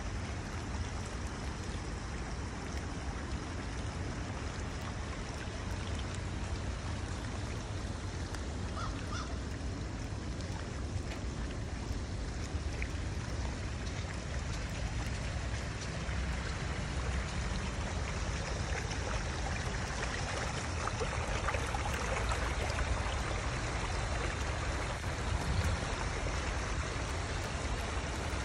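Storm runoff flowing as a shallow stream over flooded ground: a steady rushing of water, with a steady low rumble underneath.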